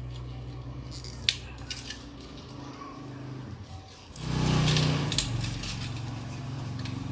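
Thin galvanised light-steel strips being bent and trimmed by hand against a steel angle and wooden block: scattered small metallic clicks, then a louder crunching scrape about four seconds in that lasts about a second.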